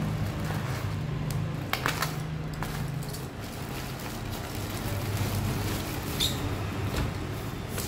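A plastic courier mailer being slit with a snap-off utility knife and torn open by hand: plastic crinkling and rustling with a few sharp clicks, over a steady low hum.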